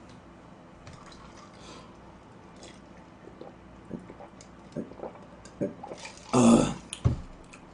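A man drinking from a can, with a few soft gulps and swallows. A short, loud burst of breath comes about six seconds in as he lowers it.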